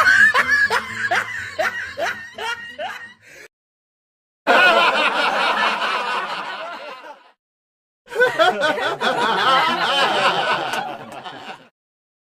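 Three laughing sound effects played one after another, each cut off by a short silence. The first is a rhythmic ha-ha-ha of about three syllables a second that fades out; the next two are denser, continuous laughs.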